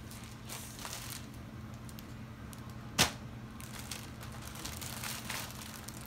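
Clothes and packaging being handled and folded, several short soft rustles, with one sharp click about three seconds in. A low steady hum runs underneath.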